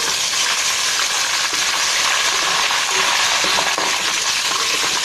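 Hot oil sizzling steadily in a metal pot as freshly added ginger-garlic paste fries with browned onions and whole spices, stirred with a metal spoon.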